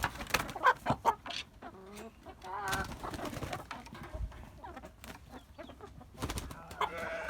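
Chickens clucking in short, scattered calls, with one longer wavering call about three seconds in.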